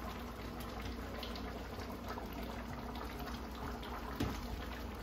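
Kare-kare peanut sauce simmering in a frying pan on a gas burner, a steady bubbling hiss. About four seconds in there is a short knock as eggplant pieces are tipped from a plastic bowl into the pan.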